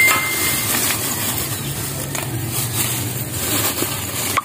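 A thin plastic bag crinkling as it is stuffed among lumps of charcoal in a metal charcoal stove, as kindling to light it, over a low steady rumble. A chime-like ding fades out in the first second.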